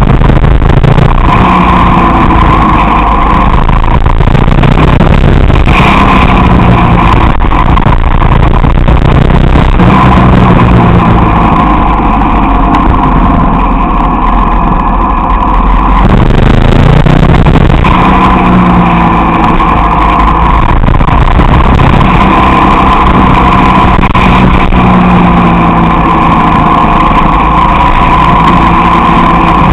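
Motorcycle engine being ridden through a series of bends, its revs rising and falling as it accelerates out of each corner and eases off into the next, with a heavy wind rumble over the microphone. The revs drop away about halfway through and climb again soon after.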